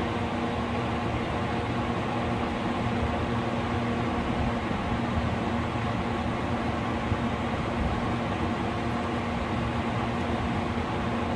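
Steady machine hum: a constant low drone with a few held tones over an even hiss, unchanging throughout.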